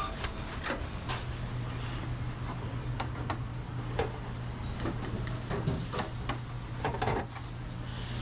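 Restaurant kitchen working sounds: a steady low hum of kitchen equipment under scattered clicks, knocks and clatters of utensils and containers.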